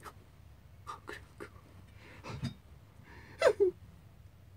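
A man's soft breaths and small vocal noises, with a short falling vocal glide about three and a half seconds in.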